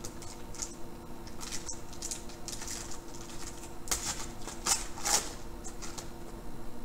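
A foil trading-card pack wrapper crinkling and tearing as it is ripped open by hand, then the cards sliding out. It comes as a string of short, sharp crackles, loudest about four to five seconds in.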